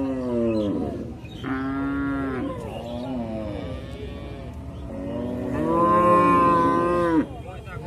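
Young calf mooing: a few short calls, then a longer, louder call near the end.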